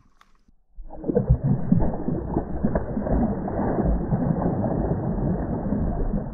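Smallmouth bass thrashing and splashing at the surface of shallow water as it is released from the hand. It starts about a second in as a dense, choppy, muffled splashing that keeps going.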